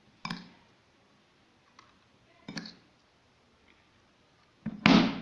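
Short, sharp clicks and knocks of kitchen handling, four in all, the loudest near the end, as sugar is put into a hollowed-out turnip.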